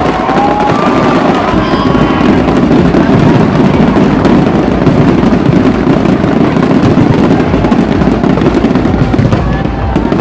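Dense, loud barrage of aerial fireworks shells bursting overhead in continuous crackling and booming, with a few whistling glides near the start.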